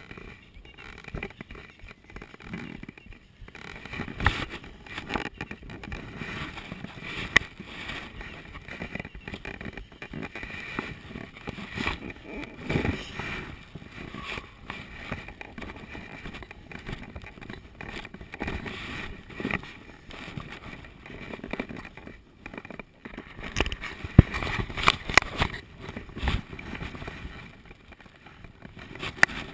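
Irregular knocks, bumps and rustling picked up by a helmet-mounted action camera as it is jostled, with the loudest cluster of knocks a few seconds before the end.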